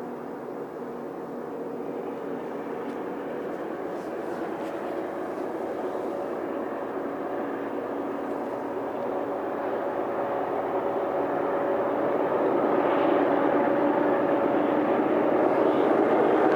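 Train passing through town, a steady rumble of wheels on the tracks growing steadily louder as it comes closer.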